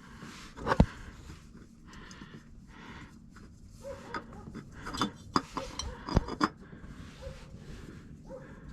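A new spin-on oil filter being screwed on by hand: faint rubbing and scraping with a few sharp clicks and knocks, several of them bunched together a little past the middle.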